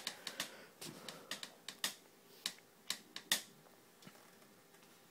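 A run of sharp, light clicks and taps, several a second at first, then thinning to a few single clicks, the loudest a little past the middle, and dying away to faint ticks.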